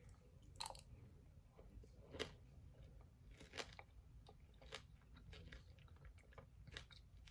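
Faint chewing of a spoonful of strawberry, berries and pomegranate seeds in coconut water, with scattered small wet crunches and clicks.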